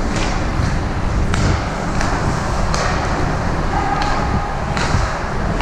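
Ice hockey game sounds: sharp clacks of sticks, puck and boards, about five in a few seconds, over a steady low arena rumble.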